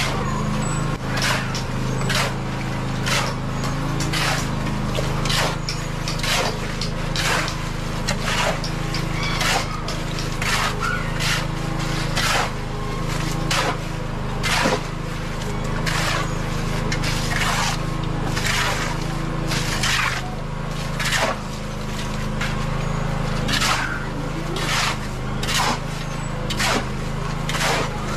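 Steel shovels scraping through wet concrete mix and gravel in quick repeated strokes, roughly one or two a second, as the concrete is mixed by hand. A steady low drone runs underneath.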